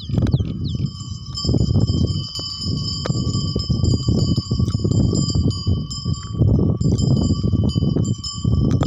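Small bells ringing steadily, a continuous jingle of several fixed tones, as from the neck bells of plough bullocks at work. Wind rumbles in gusts on the microphone, louder than the bells.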